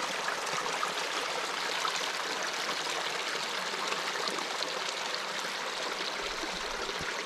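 Warm water gushing out into the lake, a steady rushing flow.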